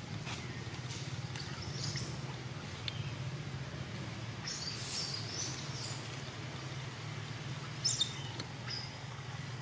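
A few short, high-pitched animal squeaks and chirps, about four times, over a steady low hum.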